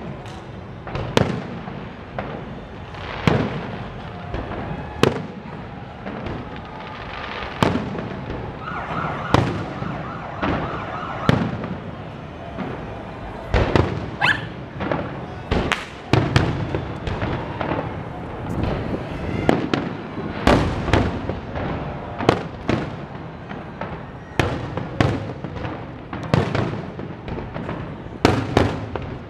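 Aerial fireworks shells bursting in a dense, irregular barrage of sharp booms and bangs, several a second at times, each followed by a short echo.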